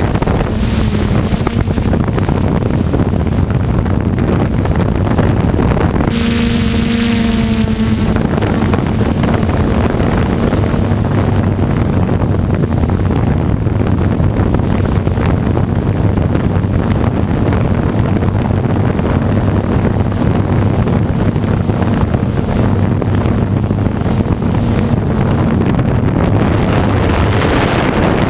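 Hexacopter motors and propellers heard from the onboard camera: a steady, loud buzzing drone with wind noise on the microphone. The pitch of the hum changes briefly about six seconds in.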